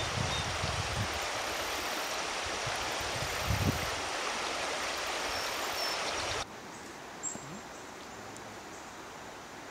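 Shallow stream running over rocks, a steady rushing of water. About six seconds in it cuts to a quieter, softer water and outdoor sound.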